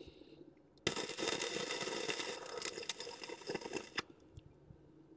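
Wire-feed welder arc crackling for about three seconds while laying a spot weld. The crackle starts sharply about a second in and cuts off suddenly when the trigger is released.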